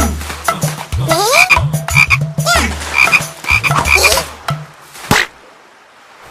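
Cartoon frog croaking over and over, about twice a second, mixed with comic sound effects: rising pitch glides and deep thuds. A sharp swish-like sound comes about five seconds in, and after it things go quiet.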